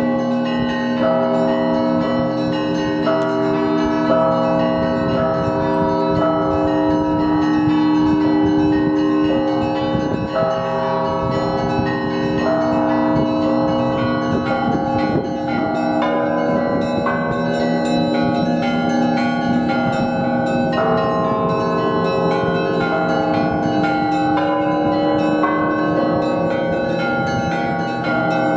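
Russian Orthodox monastery bells rung together in a continuous peal. Deep bells hum steadily beneath quicker, changing strokes on the smaller bells.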